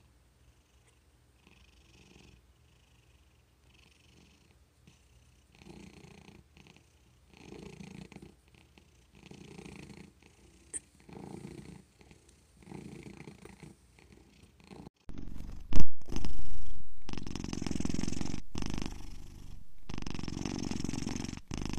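Domestic cats purring in slow swells, one with each breath about every one and a half seconds. The first cat's purr is soft. About two-thirds of the way in, a second cat purrs much louder, held right up to a small handheld microphone, with a sharp bump just after it starts.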